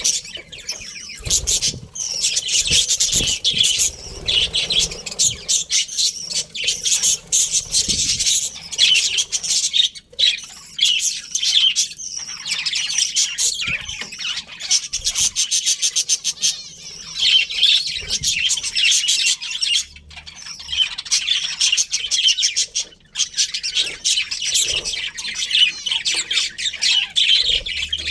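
A colony of budgerigars chirping and chattering, with many rapid overlapping high chirps that go on without a break.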